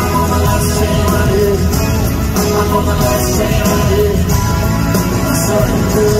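A live pop-rock band playing in an arena, heard from the audience: an electric guitar and a male lead vocal over bass and drums.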